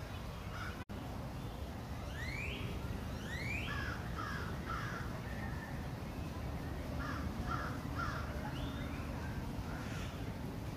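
Birds calling in short runs of three or four calls, with two rising calls about two and three seconds in, over a steady low background rumble.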